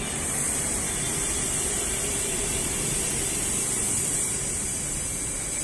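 Steady rush of road traffic passing under and along an elevated metro viaduct, with a constant high hiss over it.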